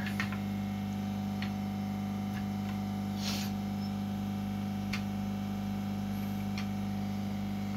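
Steady low electrical hum, with a few faint clicks and a short rustle about three seconds in as cable connectors are handled and plugged into a computer motherboard.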